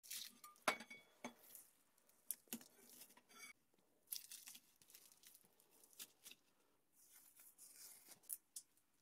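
Faint handling sounds: a metal scraper prying the milled cast-acrylic sign off a painter's-tape-covered board, with sharp clicks and taps of the acrylic pieces, and painter's tape being peeled off the acrylic in short tearing rasps.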